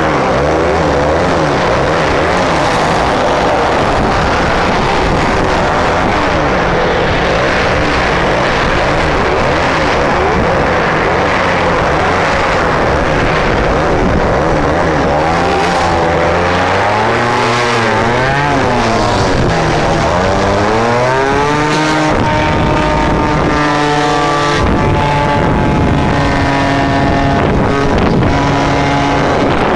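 A 50cc two-stroke motorcycle engine running under way at speed, with heavy wind noise on the microphone. Its pitch rises and falls several times around the middle, then holds steady near the end.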